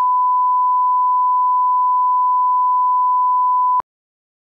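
Broadcast line-up tone that goes with colour bars: a single steady, unwavering beep that cuts off suddenly near the end.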